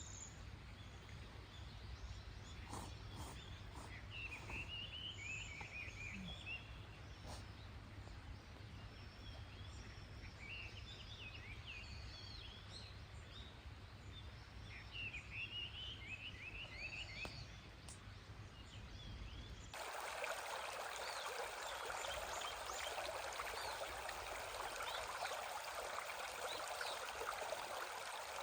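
Wild birds singing, short repeated chirping calls over a low rumble of outdoor background noise; about two-thirds of the way through it cuts suddenly to the steady rush of a flowing stream.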